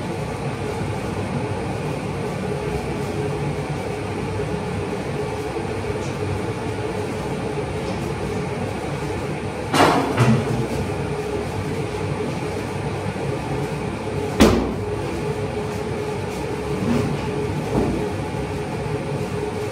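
Carpet-beating machine running with a steady mechanical noise and a constant hum, broken by a sharp knock about ten seconds in and another about four and a half seconds later.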